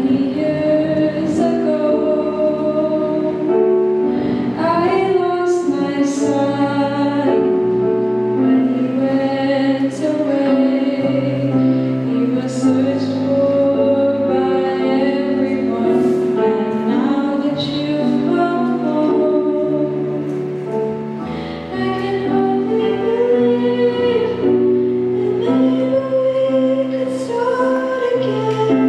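A girl singing a solo song into a handheld microphone, holding long notes over instrumental accompaniment.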